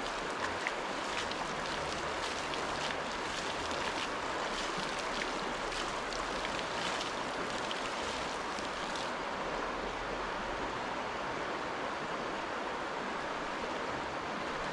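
A large rocky stream flowing steadily, an even rush of water over rocks, with small splashes through the first half.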